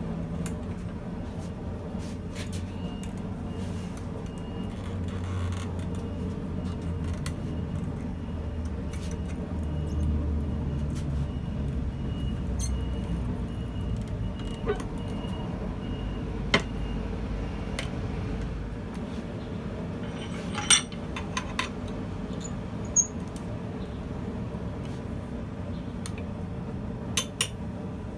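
A hot steel bar being wound around a punch held in a bench vise with a bending tool. A steady low rumble runs underneath, and a few sharp metal-on-metal clinks sound in the second half, two of them close together near the end.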